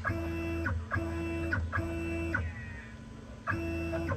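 Stepper motor driving the CNC router's Z-axis lead screw in short jogs. There are four moves of under a second each, each a steady electronic whine that ramps up and down, with a pause of about a second before the last.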